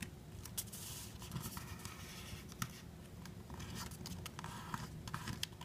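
Paper being folded and creased by hand: faint rustling with scattered small scratches and ticks as fingernails press along the fold of a paper airplane's wing, over a steady low hum.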